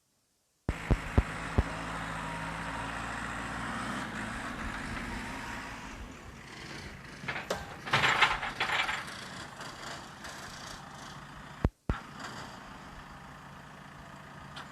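Backhoe loader's engine running steadily, with a few sharp knocks about a second in and louder irregular noise for a couple of seconds midway. The sound drops out briefly near the end.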